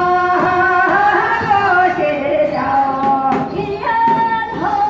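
Korean Gyeonggi folk song (gyeonggi minyo) sung by a solo voice, holding long notes that bend and slide between pitches, with short breaths between phrases.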